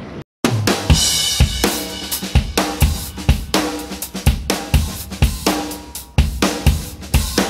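Background music with a drum kit keeping a steady beat, starting after a short silent gap at the cut.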